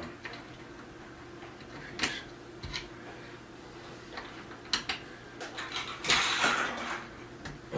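Metal cam lock fittings being set into their holes in the cabinet's particleboard panels: scattered light clicks and knocks, then a louder handling noise lasting about a second near the end.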